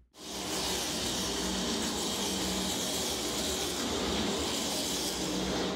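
Steady rushing noise of speedway ambience heard from the grandstands, strong in hiss, cutting off suddenly at the end.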